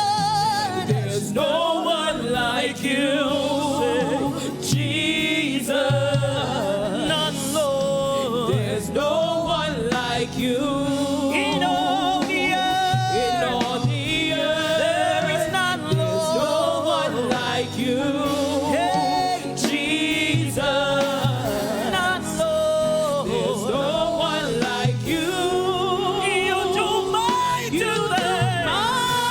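Gospel praise-and-worship singing with vibrato over a band accompaniment, its low bass notes repeating about every second and a half.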